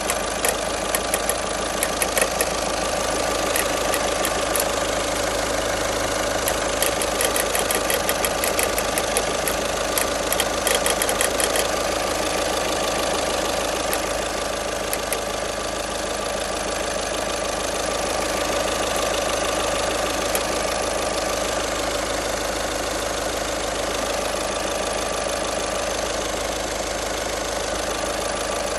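2012 Volkswagen Passat engine idling cold, with an irregular knocking and clicking from a failed alternator overrunning-clutch pulley. The clicks come thick in the first dozen seconds, then die down to a steadier idle.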